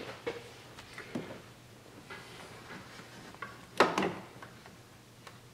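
Scattered light clicks and knocks of things being handled by hand, with a sharper double knock about four seconds in.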